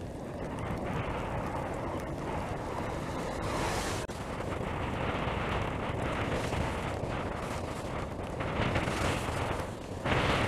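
Wind buffeting the microphone of a bicycle-mounted camera while riding on a wet path: a steady low rumble and rush of noise that swells a little about four seconds in, with a brief louder gust near the end.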